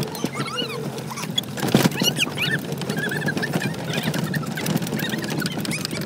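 Farm tractor engine running with a steady low hum, under a stream of short, high, arched squeaks. A sharp knock about two seconds in.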